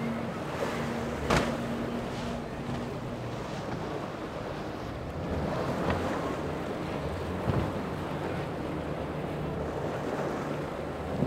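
Powerboat engines running through choppy inlet water, mixed with surf and wind noise on the microphone. A steady engine hum drops away about three seconds in, and a few sharp slaps stand out, the loudest about a second in.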